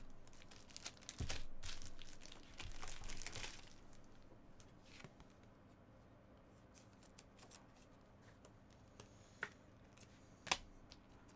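A foil trading-card pack being torn open, the wrapper tearing and crinkling for a couple of seconds, followed by a few faint scattered clicks and taps.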